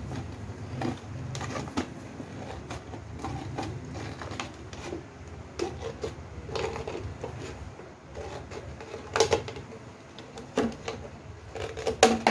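Scissors snipping through the thin wall of a clear plastic bottle, the plastic crackling and crinkling with each cut in irregular sharp clicks, loudest about nine seconds in and again near the end.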